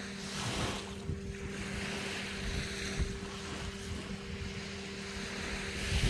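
Small waves washing up onto a sandy beach and drawing back, in gentle swells, over a steady low hum.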